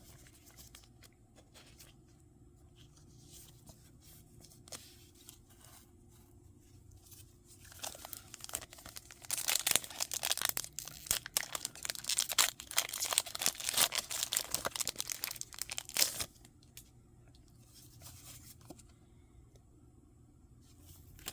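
Foil Pokémon booster pack wrapper being torn open and crinkled, loud and crackly from about 8 s in for some eight seconds, with light card handling before and after.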